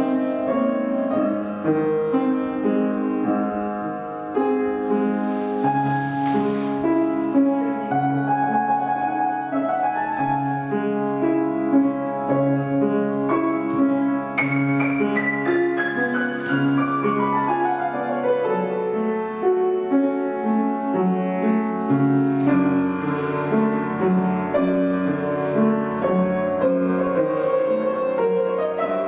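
Piano playing classical-style ballet class accompaniment, with a long descending run of notes about halfway through.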